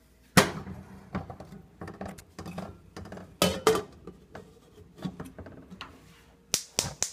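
A metal saucepan of water is set down with a loud clank on a gas stove's grate and its glass lid is fitted with further knocks and clatters. Near the end come three quick sharp clicks as the burner knob is turned and the igniter sparks.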